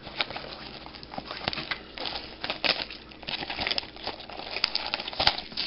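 Clear plastic shrink wrap crinkling and tearing as it is peeled off a cardboard box of trading cards, with two sharp snaps near the end.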